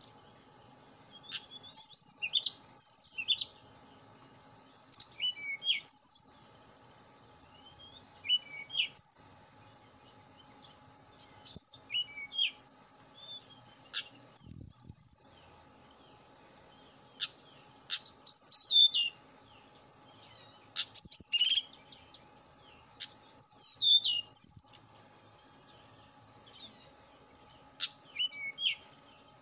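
A caged tledekan gunung, a blue-and-orange flycatcher, singing: short, bright, high whistled phrases and chirps every second or two.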